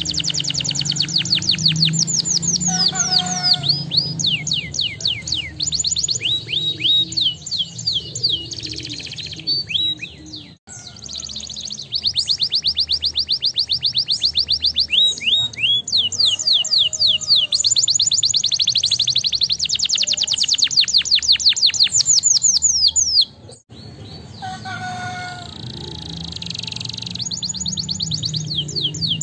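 Domestic canary singing: long, rapid trills of repeated notes, some rolled into quick downward sweeps, breaking off briefly twice.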